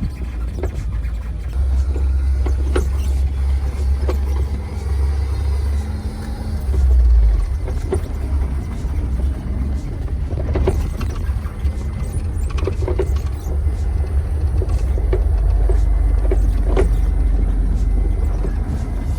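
2022 Mahindra Thar petrol 4x4 driving off-road on a mud track: a steady low rumble with scattered knocks and clunks.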